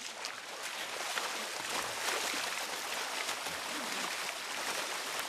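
Water splashing and churning as several soldiers crawl on their bellies through a flooded, muddy pit, a steady rush of sloshing with scattered sharper splashes, growing fuller after the first second.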